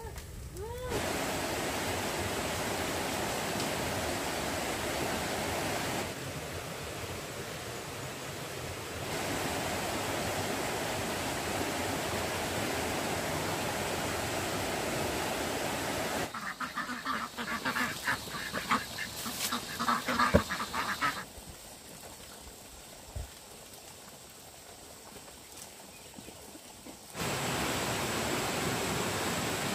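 Ducks quacking in a busy, irregular stretch around the middle, set between longer stretches of a steady rushing hiss.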